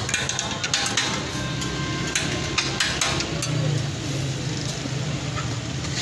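Metal spatulas clinking and scraping on a flat steel griddle in irregular knocks, over a steady low hum.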